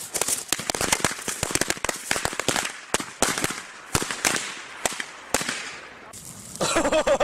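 A batch of firecrackers going off together, a rapid, irregular string of sharp cracks and pops that thins out after about five seconds. Voices come in near the end.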